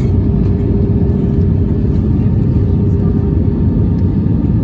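Airbus A320-232 cabin noise on approach, heard from a window seat over the wing: the steady rumble and rush of its IAE V2500 engines and the airflow. A steady hum runs under it and fades out about three and a half seconds in.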